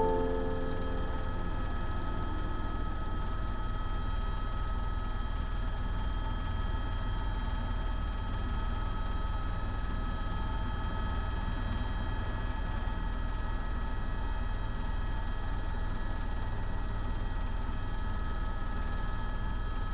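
Helicopter in flight heard from inside the cabin: a steady low rotor and engine rumble with a thin, steady turbine whine above it. A piano note from background music fades out in the first second.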